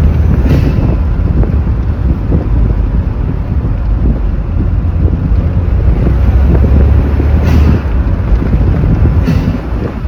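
Suzuki Cappuccino's turbocharged F6A three-cylinder engine pulling on the road, heard from inside the car, with the turbo spooling audibly now that Greddy charge piping and an aftermarket intake are fitted. Wind buffets the microphone.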